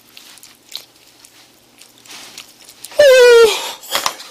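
Soft chewing and mouth sounds, then about three seconds in a man's short, very loud cry that falls in pitch, about half a second long: a reaction to food too hot in his mouth.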